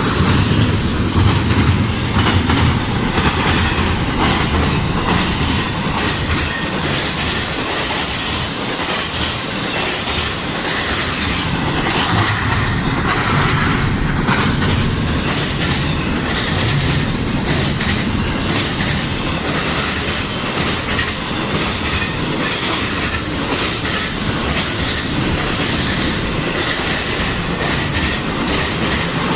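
CSX freight train rolling past close by, its cars' wheels clicking steadily over the rail joints with some wheel squeal.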